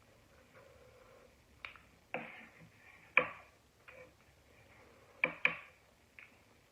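About seven sharp clicks and taps with a short ring, from chopsticks knocking against a noodle bowl while eating ramen. The loudest tap comes a little past three seconds, and two more come close together near five seconds.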